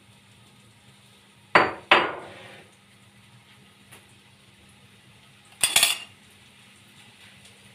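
Dishes and kitchen utensils clattering as they are handled and set down on a counter: two sharp knocks about a second and a half in, then a brief rattling clatter near the end.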